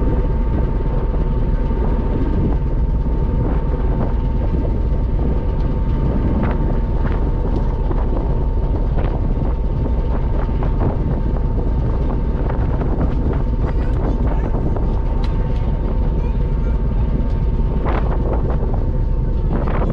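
Passenger ferry's engines droning steadily, with a thin steady whine above the low rumble and wind buffeting the microphone; a few faint clicks.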